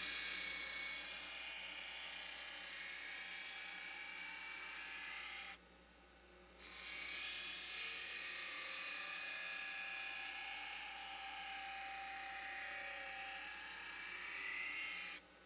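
High-pitched power tool running steadily as it grinds the steel of a knife blank cut from a concrete saw blade. It breaks off abruptly for about a second around six seconds in, and again near the end.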